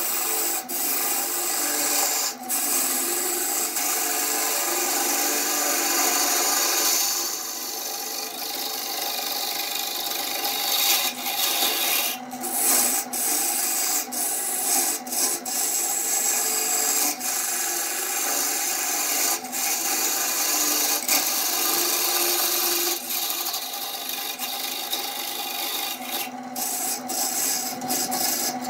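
A turning tool cutting a spinning glued-up wood vase blank on a wood lathe, giving a continuous scraping hiss of shavings over the lathe motor's steady hum. Several brief gaps come where the tool comes off the wood.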